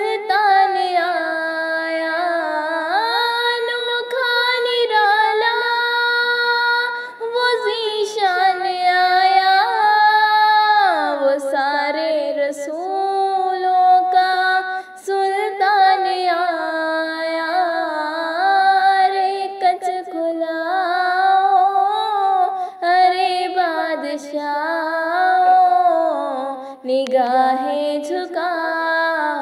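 A female voice singing an Urdu naat, a devotional song in praise of the Prophet, in long held notes that slide from one pitch to the next. Only the single voice is heard, with no instruments underneath.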